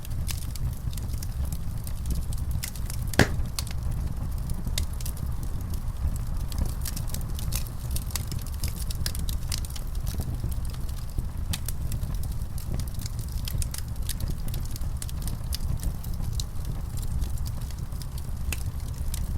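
Wood fire in a fireplace crackling, with frequent small pops over a steady low rumble. One louder pop comes about three seconds in.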